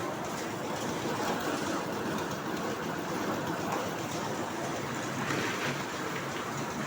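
Concrete mixer running steadily, its engine and turning drum making a continuous mechanical noise.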